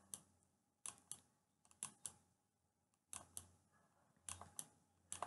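Computer mouse button clicking in pairs, pressed and released for each pen stroke while letters are drawn by hand on an on-screen whiteboard. The clicks are sharp and come about a quarter second apart, roughly one pair a second.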